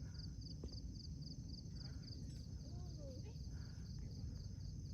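Insects chirping in a steady, rapid, even pulse, high-pitched, over a low rumble of wind and faint distant voices.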